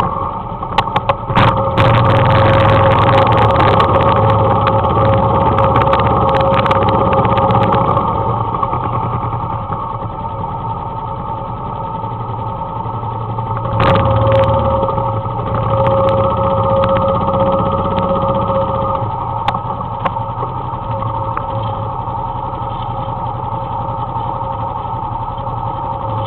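Suzuki KingQuad ATV engine running steadily as it tows a skier, with sharp rattling clicks over the first several seconds.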